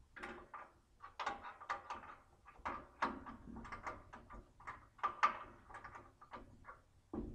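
Irregular metallic clanks and knocks, a dozen or more in quick uneven succession, from parts and tools being handled on a portable bandsaw sawmill during a blade change.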